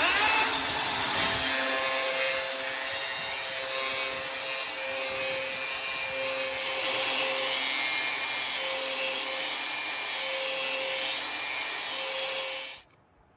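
DeWalt 60-volt cordless angle grinder grinding the edge of a steel lawn mower blade: a loud, steady grinding hiss that starts suddenly and stops abruptly about half a second before the end.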